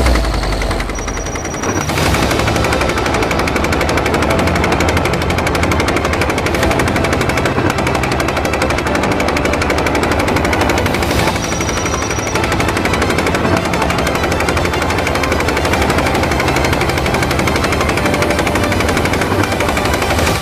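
Rapid automatic gunfire from a helicopter-mounted gun, firing in long, nearly continuous bursts over a low steady rumble, with a brief lull about a second in.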